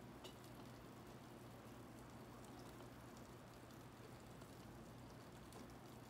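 Near silence: faint steady background hiss with a low hum and a few faint ticks.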